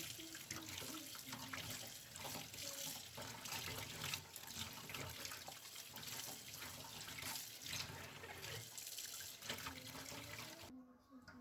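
Kitchen tap running into a sink as things are rinsed under the stream; the water cuts off about ten and a half seconds in.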